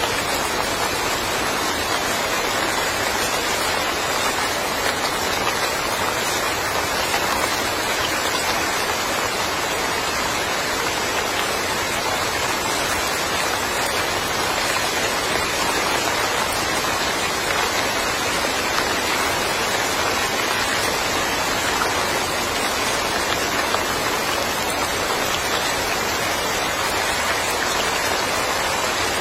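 Steady rain falling: an even, unbroken hiss of many drops, with no single drops or thunder standing out.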